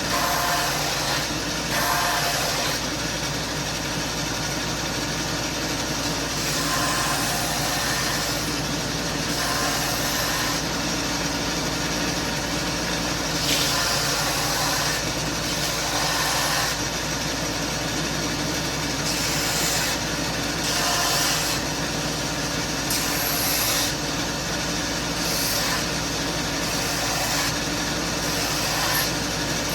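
Wen belt and disc sander running steadily, with brief surges of higher-pitched hiss every few seconds as the sanding goes on.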